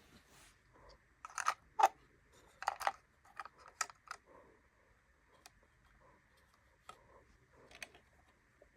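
Mini Brands miniature plastic grocery items being handled and set into a toy fridge: scattered light clicks and taps, with a few louder clatters in the first four seconds and one near the end.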